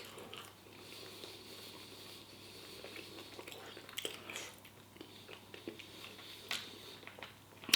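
A person chewing food with their mouth, faint and close, with a few short sharp clicks.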